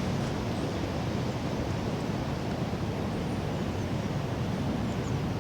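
Steady wind buffeting and rushing over the microphone outdoors.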